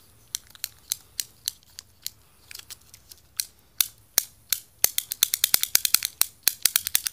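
Antsy Labs Fidget Cube's plastic controls being worked by hand: a series of sharp clicks, spaced out at first, then coming quicker and denser for the last two seconds.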